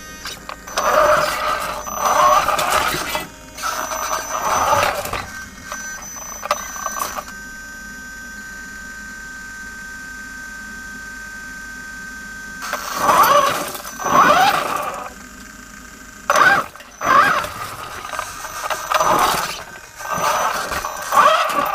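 Inspection rover's drive motors and gearing whining in short spurts as it is driven forward in stops and starts, the pitch rising and falling with each burst. In a pause of about five seconds in the middle, only a faint steady high tone remains.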